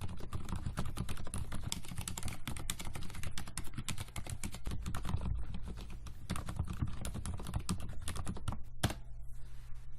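Rapid typing on Mstone Groove mechanical keyboards with silent red linear switches, a dense run of soft keystrokes. The typing switches between the stock and the fully lubricated switches, and stops with a sharp keystroke about nine seconds in.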